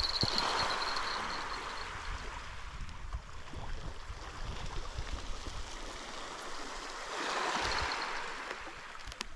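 Small waves washing onto a rocky shore, swelling twice: once at the start and again about three-quarters of the way through.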